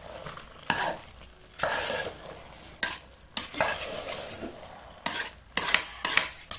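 Thick carrot halwa being stirred with a metal spoon in a metal pot: irregular scraping strokes, with a few sharp clinks of the spoon against the pot near the end.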